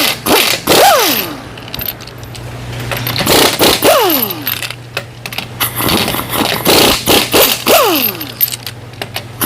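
Impact wrench taking off the rear wheel lug nuts in about three bursts of rapid hammering, its motor whine climbing and then falling away each time.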